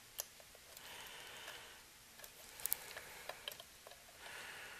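Light scattered clicks and ticks of a resistor's wire lead being fitted and bent onto a tube socket's pins and solder tag strip, with a sharper double click about halfway through.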